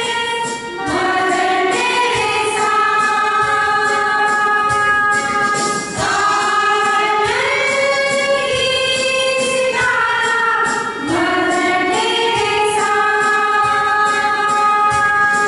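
A small choir of women singing a Christian worship song together to electronic keyboard accompaniment, in long held phrases with brief breaks about every five seconds.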